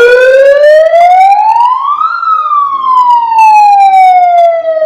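Pyle PMP58U megaphone's built-in siren wailing very loud at full volume, which the volume control cannot turn down. It switches on abruptly, rises in pitch for about two seconds, then slowly falls.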